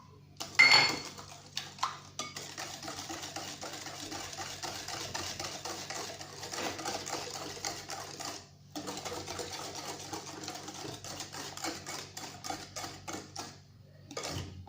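Hand whisk beating egg, sugar and oil in a mixing bowl, rapid rhythmic strokes against the bowl, with a short break about halfway. A clink comes about half a second in.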